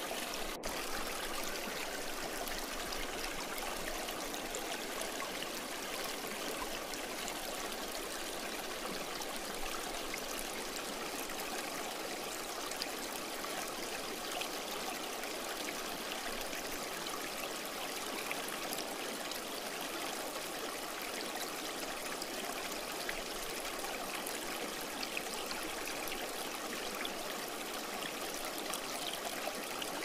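Shallow river water rushing steadily over stones and gravel, an even continuous stream sound, with a momentary dropout just after the start.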